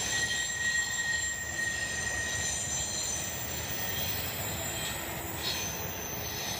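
Intermodal freight train rolling past: a steady rumble of wheels on rail, with a high-pitched wheel squeal held through the first couple of seconds and fainter high squeals above it.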